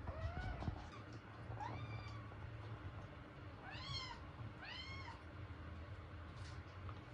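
Kitten meowing: four short high-pitched meows, each rising and falling in pitch, the last two, about four and five seconds in, the clearest.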